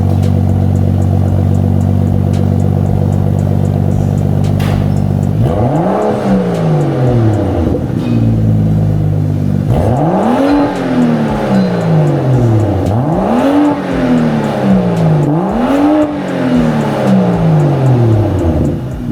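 BMW turbocharged inline-six with an aftermarket titanium cat-back exhaust idling steadily, then revved four times, each rev rising and falling back in pitch.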